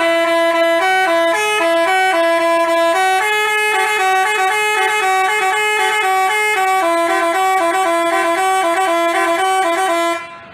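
Basuri telolet bus horn, a multi-trumpet musical air horn, playing a quick tune of short notes that hop between a few pitches. It cuts off abruptly near the end.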